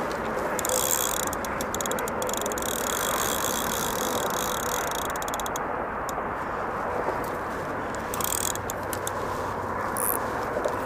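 Drag of a Daiwa Regal Bite Run spinning reel clicking fast as a hooked carp runs and pulls line off the spool, screaming off the reel. The rapid ratcheting runs for about the first five seconds, then comes again in short bursts near the end, over a steady rushing background noise.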